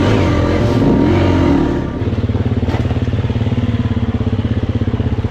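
Dirt bike engine revving up and down while the bike splashes through water, then chugging at low revs in a rapid, even pulse from about two seconds in, as it climbs a rocky trail.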